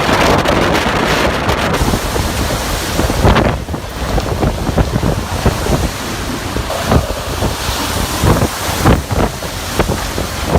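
Strong typhoon wind blowing hard in irregular gusts, buffeting the microphone loudly.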